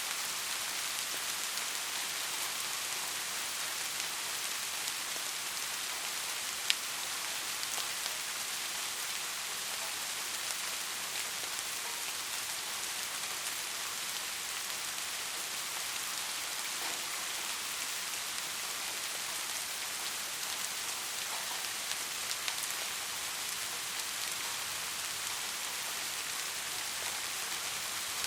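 Steady rain falling, an even hiss with scattered individual drops ticking, one of them sharper about seven seconds in.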